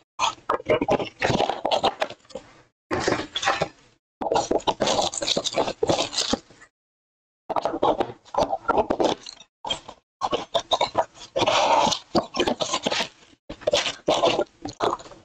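Handling noise from a cardboard trading-card blaster box being opened: flaps scraping and tearing, and foil-wrapped card packs rustling and sliding out in irregular bursts.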